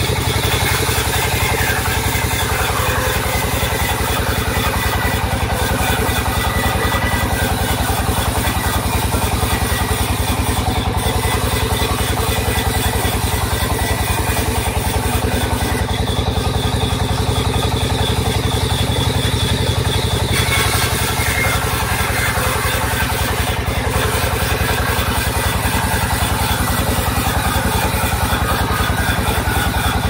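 Sawmill band saw and its drive running steadily, a loud even drone with a fast low pulsing throughout. The higher part of the sound shifts about two-thirds of the way in, while a plank is pushed along the saw table.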